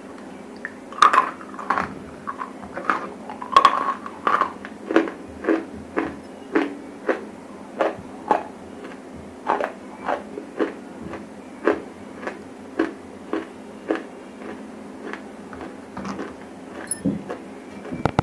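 Close-miked biting and chewing of dry grey edible clay (Nakumatt 'black hole' chalk): a quick run of crisp crunches, about two a second, loudest in the first few seconds. A steady low hum runs underneath.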